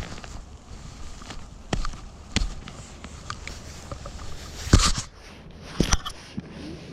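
A handful of sharp knocks and clicks, four standing out and the loudest a little past the middle, over light wind noise on the microphone.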